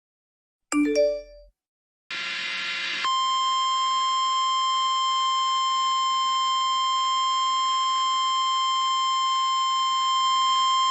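NOAA Weather Radio warning alarm tone: one steady, unchanging high tone, the 1050-hertz alert that heralds a National Weather Service warning, starting about three seconds in and held. Before it comes a brief pitched blip about a second in, then about a second of radio static.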